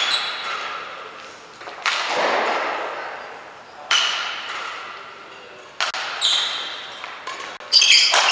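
Badminton rackets striking the shuttlecock during a rally, sharp hits about every two seconds and then several in quick succession near the end. Each hit echoes through the sports hall.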